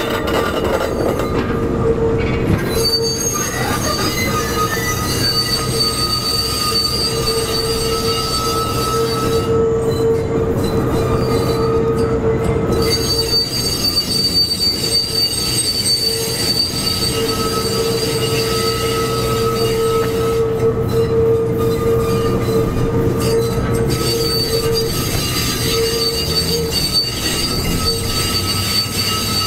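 Kawasaki R211A subway cars rolling slowly on curved track, their steel wheels squealing in a steady high tone that swells and fades, over a low rumble.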